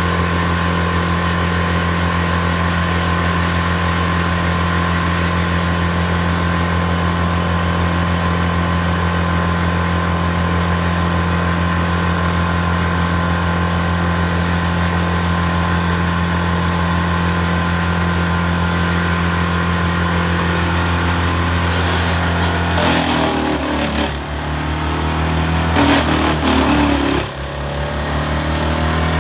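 Morbark Model 14 Blizzard drum chipper's 142 hp Perkins diesel running steadily at high speed. About twenty-two seconds in, irregular loud knocks and crackling start and the engine note shifts as the drum takes material.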